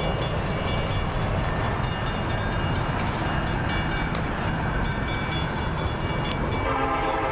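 Locomotive air horn of an approaching train, silent at first and sounding again about a second before the end, over a steady low rumble.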